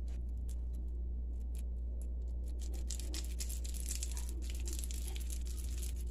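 Light clicks and rustling of hands rolling soft cream-cheese balls in a glass bowl, busiest from about three to five seconds in, over a steady low hum.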